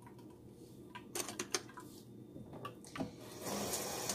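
A few light clinks and taps of a glass blender jar against an aluminium strainer as blended oat water is poured through it. About three and a half seconds in, a steady rush of running liquid begins.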